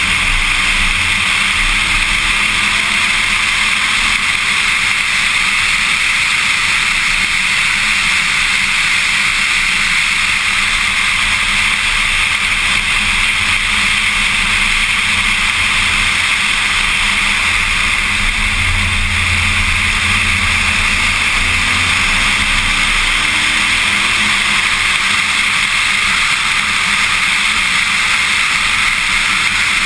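Corvette Z06 at speed on a race track: a steady, loud rush of wind and road noise with the V8 engine underneath, its pitch faintly rising a few times as it pulls out of corners.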